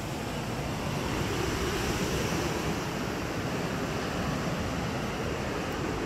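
Steady rushing of sea surf washing onto a beach, mixed with wind on the microphone.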